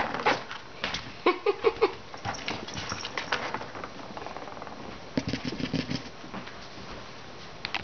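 A kitten batting a ball around a plastic circular track toy: irregular clicks, knocks and rattles of the ball and paws against the plastic, in clusters through the first few seconds and again about five to six seconds in.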